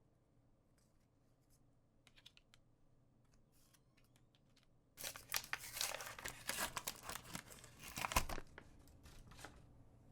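Trading card packaging being torn open by hand: a few faint handling clicks, then about three and a half seconds of crinkly plastic wrapper tearing with a sharp rip near the end, followed by light rustling.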